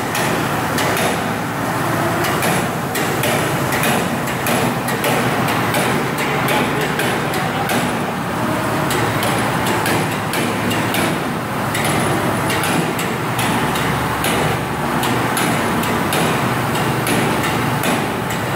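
Steady, loud machinery noise with frequent sharp clicks and knocks running through it.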